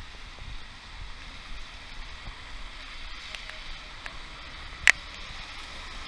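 Light rain hissing steadily on wet pavement, with scattered sharp ticks and one loud tick about five seconds in.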